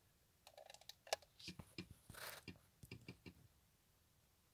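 Faint handling noise: a scatter of small clicks and short rustles for about three seconds, then near silence.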